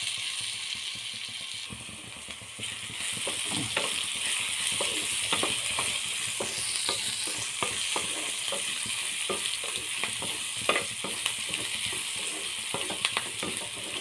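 Chopped capsicum sizzling in hot oil in a pan, with a steady hiss. From about three seconds in, a spatula stirs it, knocking and scraping against the pan in many short clicks.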